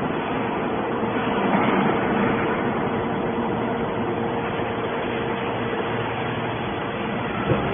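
Hydraulic metal scrap baler running: a steady mechanical hum and noise with a faint steady tone, and one short knock near the end.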